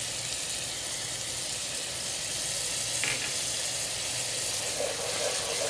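Onion-tomato masala with freshly added chilli powder, turmeric and ginger-garlic paste sizzling steadily in hot oil in a pan.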